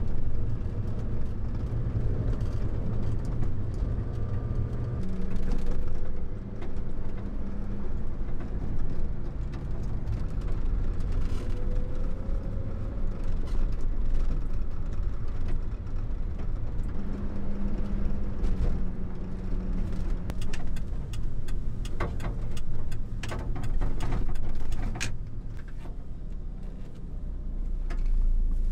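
Kei truck's small engine and road noise heard from inside the cab while driving, a steady drone whose engine note changes pitch a few times with speed. A few short knocks and rattles come in the second half.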